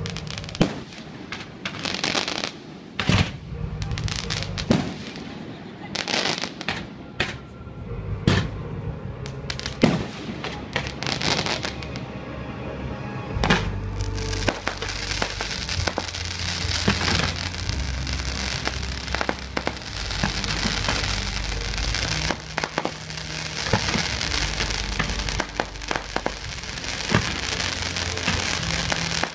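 Fireworks going off: a quick run of sharp bangs and pops, then from about halfway a dense, continuous crackling over a low rumble.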